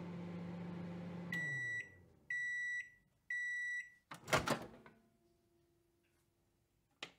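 Microwave oven humming, its hum winding down as three high beeps sound about a second apart to signal the end of cooking, then a clunk as the door opens.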